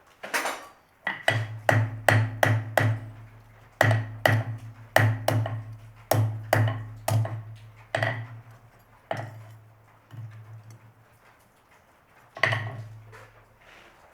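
Blacksmith's hand hammer striking steel on an anvil in quick, uneven runs of blows, each one ringing. The blows thin out after the middle, and one last strike comes after a pause near the end.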